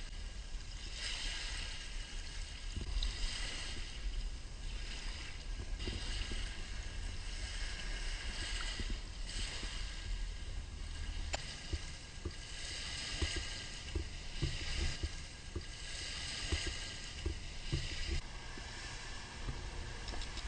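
Small waves washing up on a sandy shore, the hiss swelling and fading every few seconds, with wind rumbling on the microphone.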